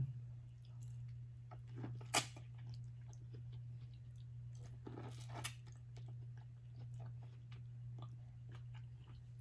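Close-up chewing and mouth sounds of a person eating, with scattered small clicks and a sharper click about two seconds in, over a steady low hum.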